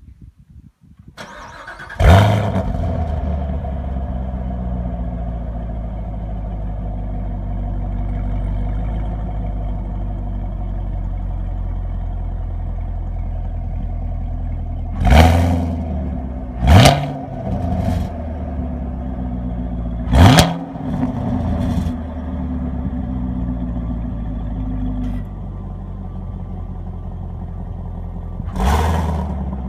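Chevrolet Camaro SS V8 engine cranked by the starter and catching with a loud burst, then idling with a strong rumble. It is blipped several times in sharp revs, a cluster about halfway through and once more near the end, and the idle settles slightly lower shortly before the last blip.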